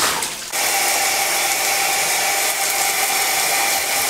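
Splashing water dies away in the first half-second. Then a small electric motor starts whirring steadily with an even whine.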